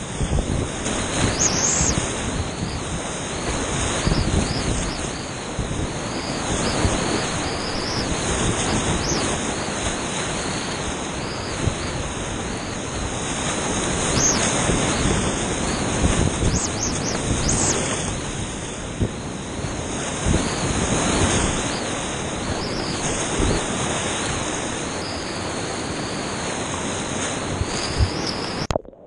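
Whitewater rapids rushing loudly around a kayak, heard close up from the boat, with brief splashes throughout. The sound cuts off suddenly near the end.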